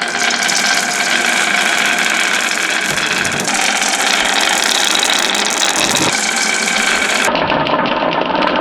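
Small toy motor running steadily with a rattle, its sound turning duller about seven seconds in.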